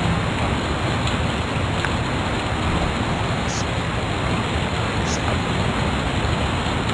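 Steady, loud hiss of background noise with no changes, with faint voices under it and a couple of faint ticks about halfway through.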